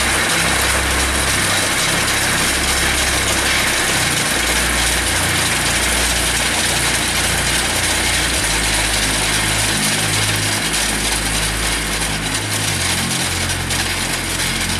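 Engine of the turf aerator machine running steadily as it works the pitch, punching deep holes into the turf; its low note shifts a few times.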